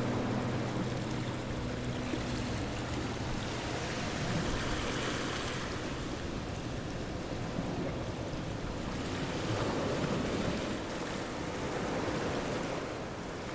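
Ocean surf: waves washing in and breaking, the rush swelling and easing every few seconds.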